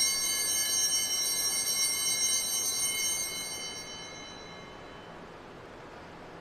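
Altar bells ringing at the elevation of the chalice after the consecration, a bright, steady high ringing of several tones that fades away about four seconds in.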